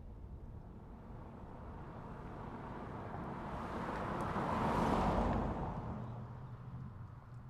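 A road vehicle passing by, its noise building gradually, peaking about five seconds in and then fading away.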